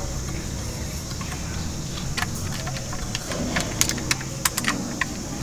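Small plastic clicks and taps from a toy concrete mixer truck being handled and turned in the hands. The clicks come in a quick, irregular cluster in the second half.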